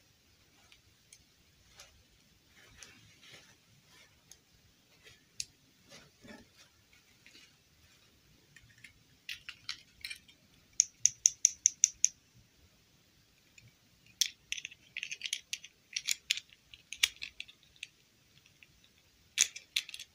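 A small plastic mini doll and its moulded plastic clip-on dress handled by hand: faint rustling, then sharp plastic clicks and taps. A quick even run of about eight clicks comes about halfway through, then irregular clusters and two last clicks near the end.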